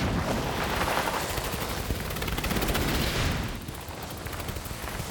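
A dense, rapid rattling clatter of many small clicks over a low rumble, easing off a little after about three and a half seconds.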